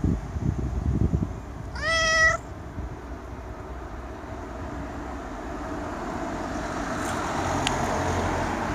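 Domestic cat meowing once, a short call that rises in pitch and then holds, asking to have the door opened. Low rumbling comes before it, and a steady background hum of traffic grows slowly afterwards.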